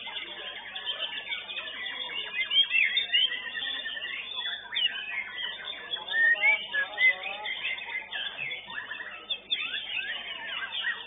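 White-rumped shamas (murai batu) singing in competition, several birds at once: a dense, unbroken tangle of loud whistled phrases, quick rising and falling notes and chattering trills, with the loudest phrases about two and a half seconds in and again around six to seven seconds.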